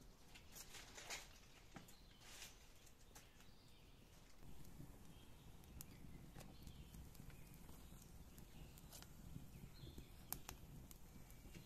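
Faint, scattered knocks and rustles of split firewood logs being pulled from a stack and laid onto a small wood fire. The sharpest knock comes about ten seconds in.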